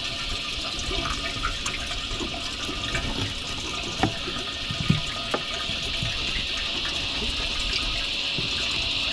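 Steady rush of water around a small boat, with a few sharp knocks of a knife on a plastic bait board about four and five seconds in as a baitfish is cut up.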